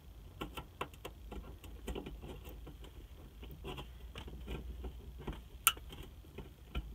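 Small plastic clicks and rattles of a trunk-light connector and lamp housing being worked back on by hand, with one sharp click a little more than two-thirds of the way in as it snaps into place.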